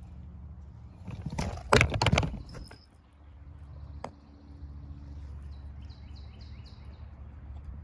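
Handling noise as a phone camera is swung round: a loud rustling, knocking burst a second or two in, then a single click, over a steady low rumble. Near the end a bird gives a quick series of about six repeated high notes.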